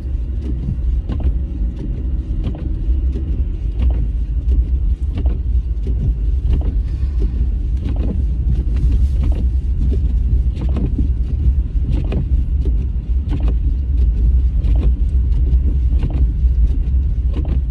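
Car driving on a snow-covered road, heard from inside the cabin: a steady low rumble of engine and tyres, with regular light knocks a bit more than a second apart.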